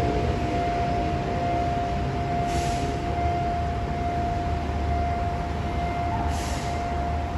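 Steady single-pitch warning tone of a railway level-crossing signal sounding continuously over city traffic rumble, with two short hisses about two and a half and six seconds in. The barrier is down for an approaching train.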